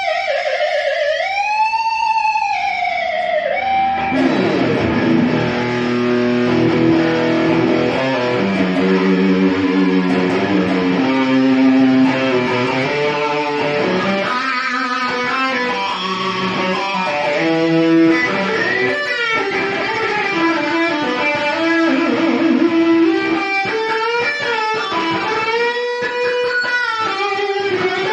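Ibanez RGA42HPT electric guitar being played: a held note bent up and back down in the first few seconds, then a run of riffs and sustained melodic lead notes.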